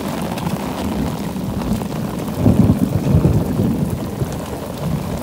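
Heavy rain pouring down, with wind buffeting the microphone and a louder low rumble about two and a half seconds in.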